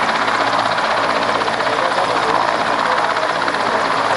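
Helicopter running close by, its rotor beating rapidly and steadily over a constant engine noise.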